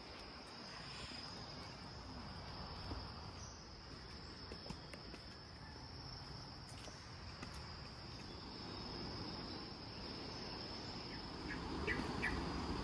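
Insects trilling steadily at one high pitch over faint outdoor background noise.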